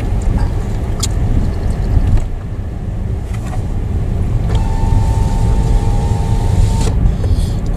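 Car driving on a paved road, heard inside the cabin: a steady low rumble of engine and tyres, with a few small knocks and a steady tone lasting about two seconds past the middle.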